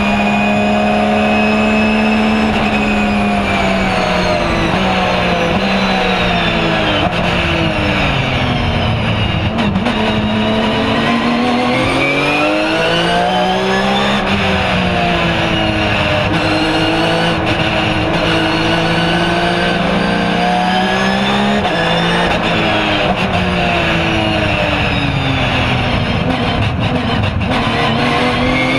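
Porsche 997 GT3 R's flat-six engine heard from inside the cockpit, its pitch falling as the car slows, rising again about ten seconds in and holding steady, then falling and climbing once more near the end.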